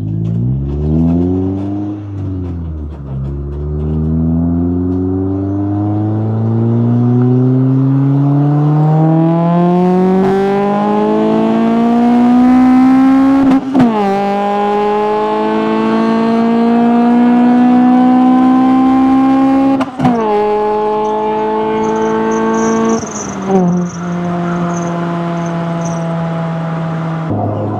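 DA-generation Acura Integra's four-cylinder engine accelerating through the gears. The revs climb steadily in a long pull, fall sharply at an upshift about 14 seconds in, climb again and fall at a second upshift about 20 seconds in, then hold fairly steady with a smaller dip near 23 seconds.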